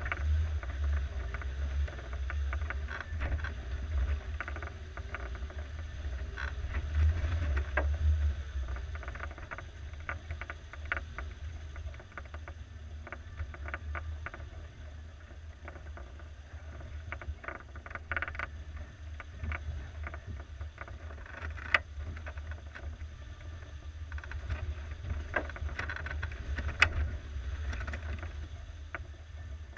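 1987 Suzuki SJ413's 1.3-litre four-cylinder engine running low and slow as the off-roader crawls a rough forest trail, a steady low rumble that is louder in the first several seconds and then eases. Scattered clicks and knocks from the body and suspension over the ruts, with two sharper knocks in the second half.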